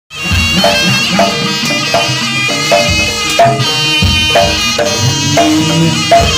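Jaranan ensemble music starting abruptly: pitched percussion strikes at an even beat of about two a second under a sustained, reedy melody of the kind played on the slompret trumpet.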